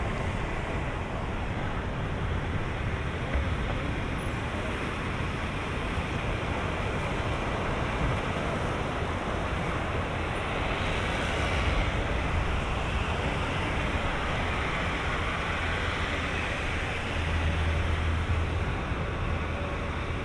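Steady outdoor wash of surf and wind noise on the microphone, with a low rumble that swells briefly near the end.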